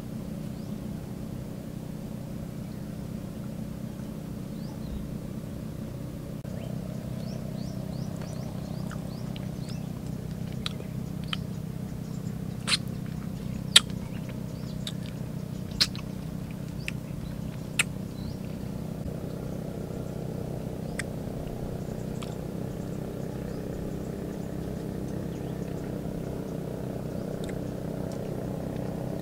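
A steady, low motor drone, like an engine running at a constant speed. About halfway through, a few sharp clicks cut in over it, four of them loud.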